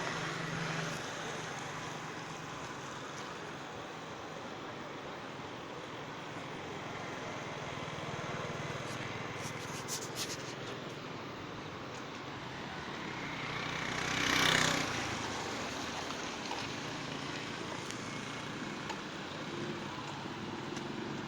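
Steady rushing noise of a rain-swollen flooding river, with a vehicle passing close by, swelling and fading, about fourteen seconds in.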